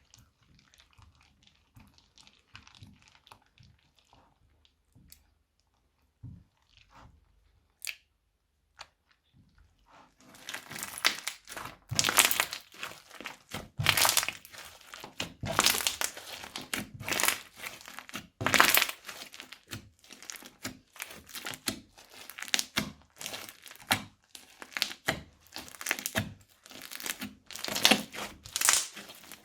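Crunchy slime being squeezed and worked by hand: faint rustling handling sounds at first, then from about a third of the way in a dense, continuous run of loud crackling and crunching.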